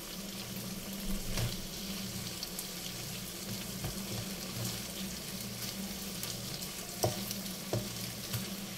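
Chicken and vegetables sizzling steadily in a nonstick frying pan while a wooden spatula stirs them, knocking against the pan a few times, twice near the end.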